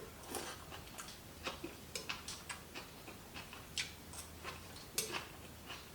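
Someone eating duck gizzards: a string of small, irregular clicks and smacks, several a second, from chewing the firm, muscular meat.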